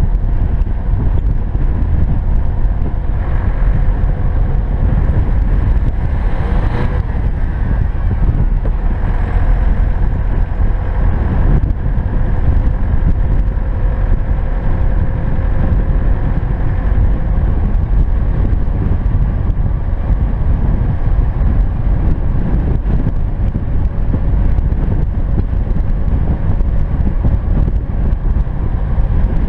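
A car driving on a snow-covered road: steady engine drone and tyre rumble on packed snow, with a short swell of hiss about seven seconds in.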